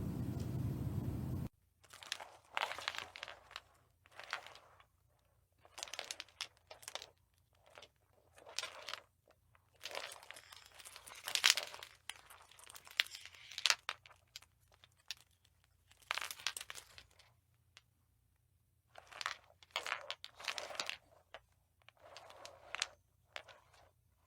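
A series of short, irregular crunching and scraping noises with quiet gaps between them, from a glass light bulb being handled.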